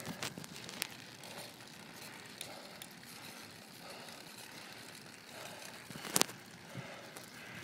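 A cyclist breathing hard after a steep climb, about one breath a second, with scattered sharp clicks and one louder click about six seconds in.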